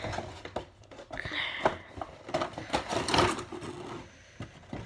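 Clear plastic blister packaging of an action figure crinkling and clicking in irregular bursts as it is handled and slid out of its cardboard box.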